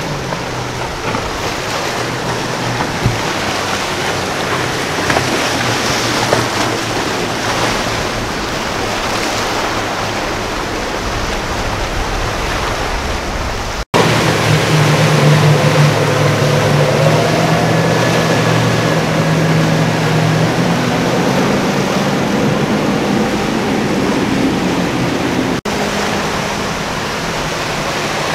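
Rushing water and surf from a powerboat running through choppy inlet waves. About halfway through, the sound breaks off abruptly and a Fountain powerboat's engines come in, droning steadily and low over the hull's spray, with the engine note rising slightly.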